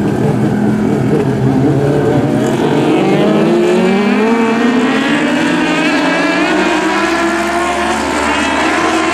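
A pack of compact speedcars racing on a dirt oval, several engines running loud at high revs. Their pitch rises over the first few seconds as they accelerate, then holds high.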